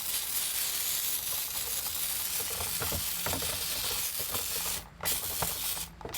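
Aerosol can of bubble leak-detection spray hissing steadily as it is sprayed over an air-conditioning condenser to find a leak, stopping briefly twice near the end.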